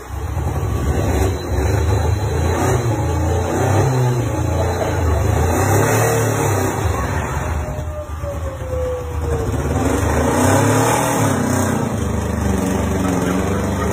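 A small car's engine revving hard and unevenly under heavy load as it pushes another car bumper to bumper, the revs rising and falling.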